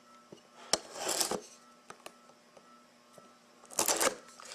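Trading card boxes and packaging being handled: a sharp click, then two short rustles of cardboard and wrapper with a few light ticks between, over a faint steady hum.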